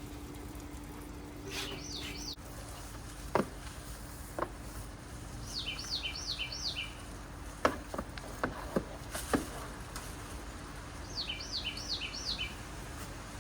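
A songbird singing three short songs about five seconds apart, each a quick run of four repeated two-part notes. Several sharp clicks and knocks sound between the songs.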